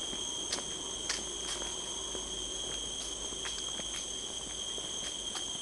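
Steady high-pitched insect chorus of several held tones, with scattered light clicks over it.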